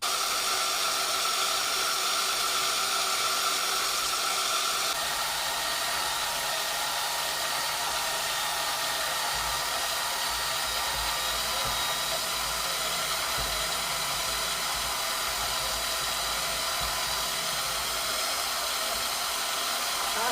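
Bandsaw running steadily while cutting through a length of steel railway track, an even machine noise with a steady whine, shifting slightly about five seconds in.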